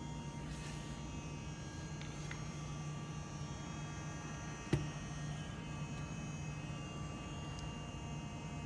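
Steady low electrical hum from a switched-on OCA vacuum laminating machine, with a single sharp click a little past the middle.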